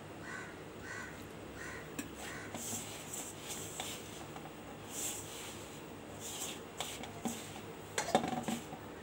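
Hand working flour and water into dough in a stainless-steel bowl: soft, intermittent rustling and squishing, with a few sharp clicks about eight seconds in. A bird calls repeatedly in the background during the first couple of seconds.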